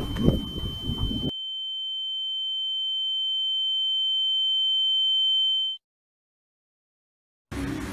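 A steady high-pitched ringing tone, an ear-ringing sound effect, grows louder for about four seconds and then cuts off suddenly into silence. Outdoor background noise is heard briefly before it, and room noise returns near the end.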